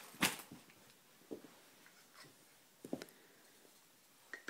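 Wooden toy train track pieces knocking together as they are handled: a few separate light clacks, the loudest just after the start.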